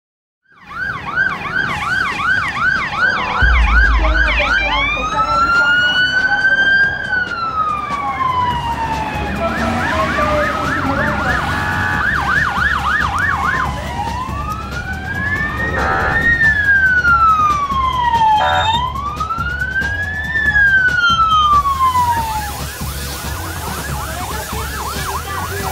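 Two or more emergency-vehicle sirens sounding together. They switch between a fast yelp and a slow rising-and-falling wail, over a low steady rumble.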